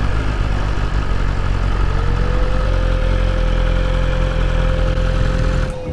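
BMW S1000RR's inline-four engine running at low speed and settling into a steady idle. Its rumble cuts off suddenly near the end.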